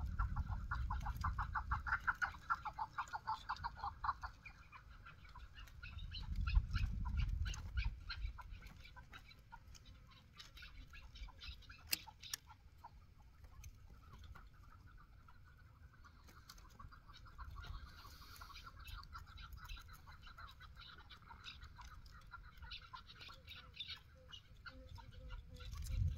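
Chukar partridges calling: fast runs of short, dry clucking notes, strongest in the first few seconds and again through the second half. Low rumbling noise on the microphone comes and goes.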